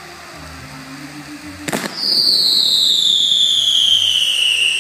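A firework goes off with a sharp bang, then a whistling firework sounds a loud whistle that falls steadily in pitch for about three seconds. Show music plays faintly before the bang.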